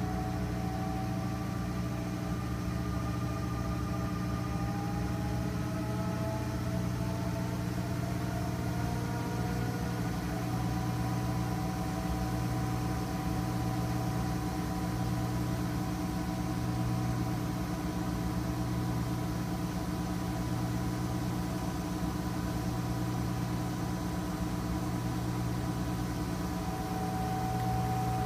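GE front-loading washing machine in its spin cycle: a steady motor hum with a whine that rises slowly over the first ten seconds or so as the drum gets up to speed, then holds steady.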